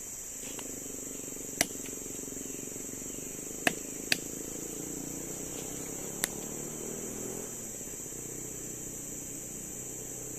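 A steady high-pitched insect drone of crickets or cicadas in tropical forest, with four sharp clicks or snaps about one and a half, three and a half, four and six seconds in, over a low rustling of hands working.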